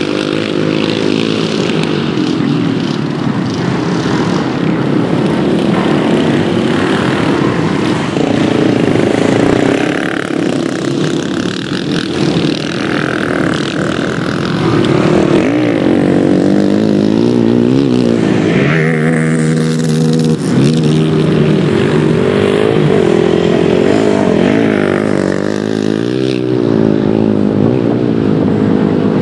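Quad (ATV) engines revving as they ride the dirt track, the pitch climbing and dropping with throttle and gear changes. The engines hold one steady pitch briefly past the middle.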